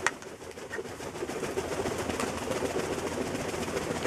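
A black Cayuga duck flapping its wings while other ducks shuffle about in straw bedding, giving a steady rustling flutter, with one sharp knock at the very start.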